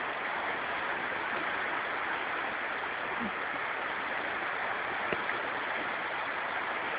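Small waves washing steadily onto a sandy shore, an even water hiss, with a faint click about five seconds in.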